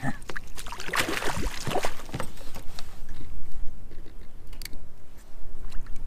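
Water splashing and rattling as a hooked fish is scooped into a landing net beside a kayak. The splashing is heaviest about a second in, followed by scattered knocks and rustles from the net and gear.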